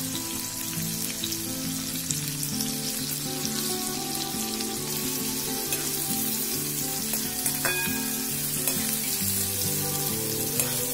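Chopped onions sizzling as they fry in hot oil in an aluminium kadhai. A slotted spatula stirs them, scraping and clicking against the pan, with one sharper knock near the middle.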